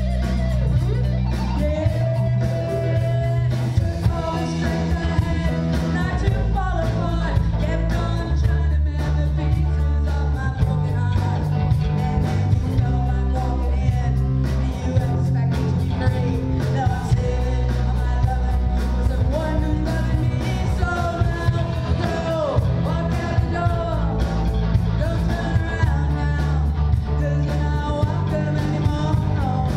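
Live rock band playing: a woman's amplified singing over electric guitar, bass and drums, steady and loud throughout.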